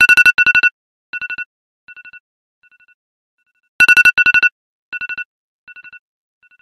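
iPhone alarm ringing: a loud cluster of rapid two-note electronic beeps, followed by softer repeats that fade away. The loud cluster comes back about four seconds in.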